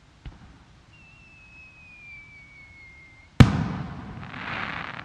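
An aerial firework shell. A faint launch thump is followed by a thin whistle that falls slowly in pitch as the shell climbs, then a loud burst about three and a half seconds in, rumbling away. A hissing crackle from the glittering gold stars comes near the end.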